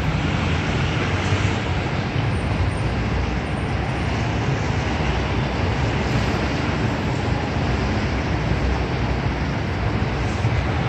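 Steady city traffic noise: cars and motor scooters running on a busy street, a continuous rumble with no single vehicle standing out.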